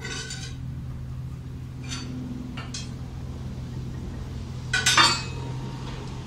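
Metal clinks and knocks from a steel pry bar levered against a motorhome's front wheel and suspension, checking the joints for play: a few sharp clinks, with the loudest cluster about five seconds in. A steady low hum runs underneath.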